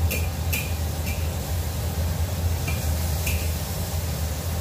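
Metal wok spatula scraping and clinking against a wok while tofu is turned in the frying oil: about five short ringing scrapes, over a steady low rumble.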